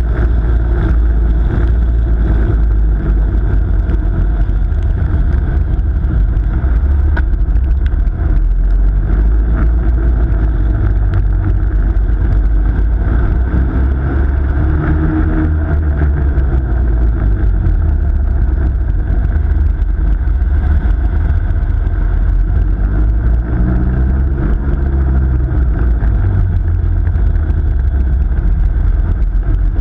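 Ice kart driving around an ice track, heard from a camera mounted low on the kart: steady, loud motor noise and rumble that keeps going throughout. The pitch rises and falls a couple of times as the kart speeds up and slows.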